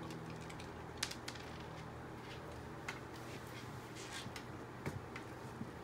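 A corgi chewing kibble taken from a hand: a few faint, sharp crunching clicks spread over several seconds, over a low steady hum.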